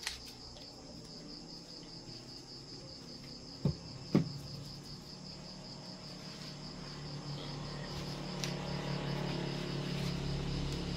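Crickets chirping steadily in a fast, pulsing trill. Two sharp clicks half a second apart come a little under four seconds in, and a low rumble swells near the end.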